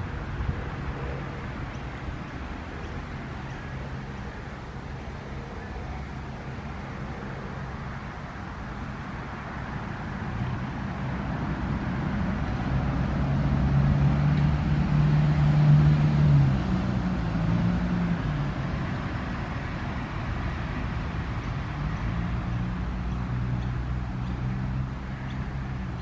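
A motor vehicle's engine hum, swelling to its loudest about halfway through and shifting in pitch, then easing off and rising a little again near the end, over a steady outdoor noise.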